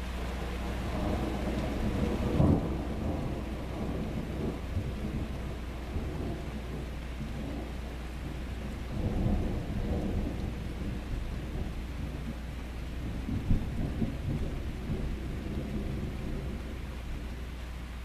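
Thunder rumbling in several rolls over steady rain. The loudest peak comes a couple of seconds in, another roll comes about halfway, and a sharper clap comes a few seconds later.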